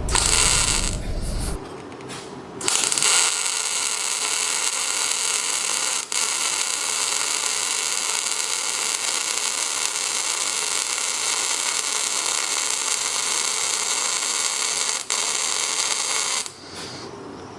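MIG welding arc crackling and buzzing. A short strike of under a second comes first, then a steady bead of about fourteen seconds, broken briefly twice, before the arc cuts off.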